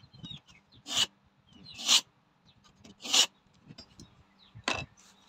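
Knife blade drawn through a handheld pull-through sharpener with small sharpening stones inside: four short rasping strokes, roughly a second apart.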